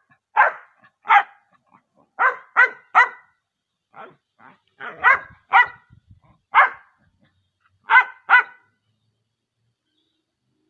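A dog barking repeatedly in short, sharp barks, singly and in quick runs of two or three, about a dozen in all, stopping near the end.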